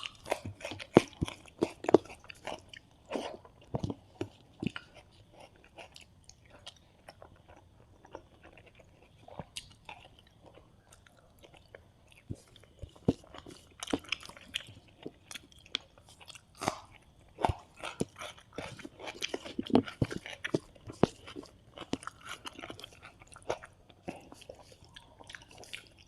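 Close-miked eating of a South Indian rice meal with fried fish: chewing with irregular crunches and wet mouth clicks, thinning out for a few seconds in the middle.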